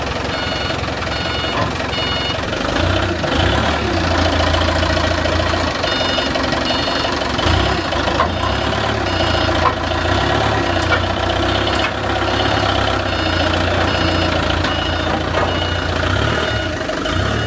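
Heavy diesel machinery engine running steadily, with an electronic warning or reversing alarm beeping about twice a second in three runs: at the start, around the middle and near the end.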